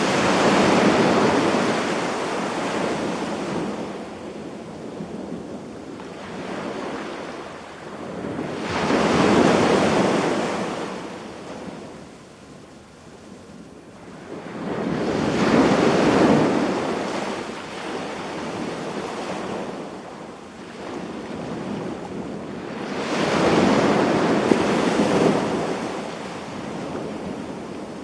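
Sea waves breaking and washing up onto a sandy beach: four surges that swell and fade, about seven to eight seconds apart, over a steady wash of surf.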